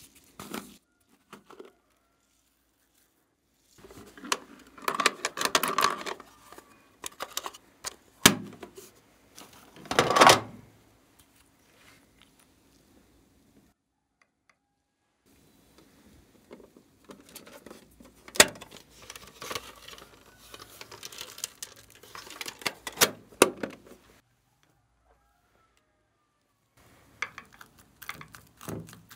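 Foam beads, sprinkles and small plastic charms handled in glass baking dishes: stretches of rustling, clicking and rattling with a few sharp knocks against the glass, broken by silent pauses.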